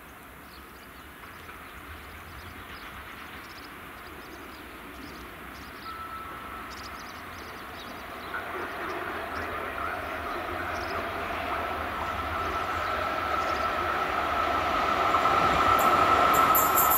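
FS E.656 electric locomotive approaching, growing steadily louder, with a steady whine that sets in about halfway and strengthens as it nears. A thin high-pitched sound joins near the end.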